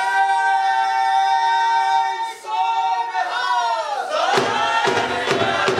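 A Gatka performer's long, drawn-out battle cry held on one high note for about two seconds, then a second held note that falls away. A group of voices then shouts in answer, with sharp knocks among them.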